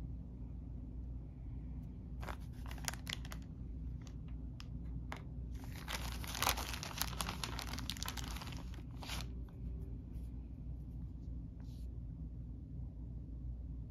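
A few light plastic clicks about two seconds in, then a plastic bag crinkling and rustling for about three seconds as a hand rummages through loose plastic game figures.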